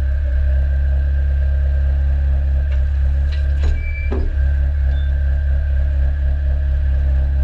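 Engine of the machine lifting a precast concrete panel on chains, running steadily and heard close up, with a short rattle and creak a little past halfway.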